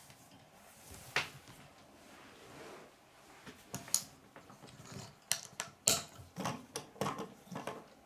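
Plastic Lego pieces clicking and clattering on a wooden tabletop as they are handled and pressed together: a few sharp clicks in the first half, then a quicker run of clicks near the end.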